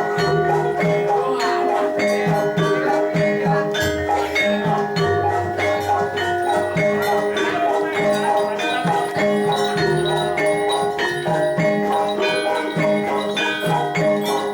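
Gamelan ensemble playing jathilan accompaniment: struck bronze keyed instruments and gongs ringing in a steady, even rhythm, with drum notes underneath and jingling bells.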